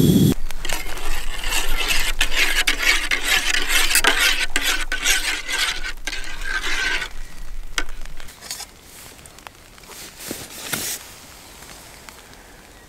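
A spoon stirring instant coffee in a metal camping mug: rapid clinking and scraping against the metal for about seven seconds, then a few light knocks.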